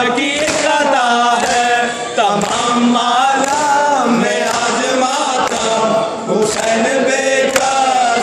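Male voices chanting a noha, a Shia mourning lament, through a microphone, with held, wavering melodic lines. A few sharp hits sound now and then.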